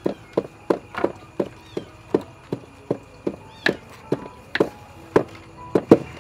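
Knives chopping food on wooden cutting boards, with a wooden pestle pounding in a mortar: a steady run of sharp knocks, about three a second, louder near the end.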